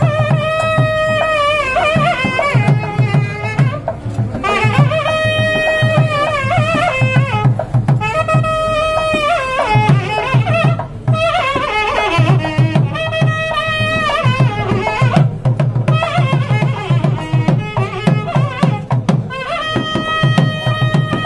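Music: a melody in repeated phrases over a quick, steady drum beat.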